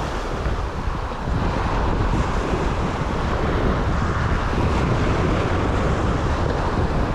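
Wind buffeting the microphone over the rush of surf breaking on the shore, a steady low rumble with no pauses.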